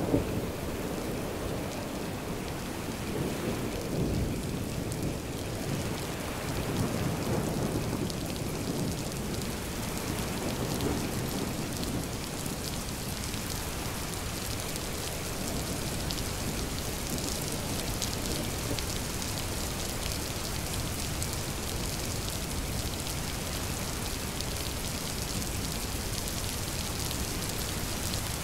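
Steady rain falling with rolling thunder rumbling low in the first several seconds and fading away, leaving the even hiss and patter of the rain.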